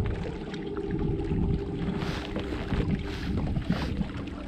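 A bow-mounted electric trolling motor runs with a steady whine as it steers the boat. Wind buffets the microphone, and water laps at the hull.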